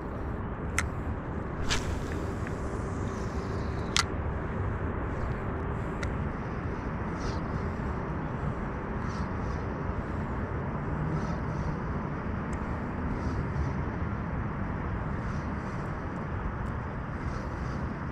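Steady hum of road traffic. A few sharp clicks come in the first few seconds.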